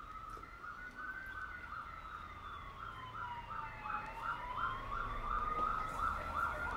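Emergency vehicle siren, faint and growing louder. One tone wails slowly up and down over about five seconds, while a second tone pulses about three times a second.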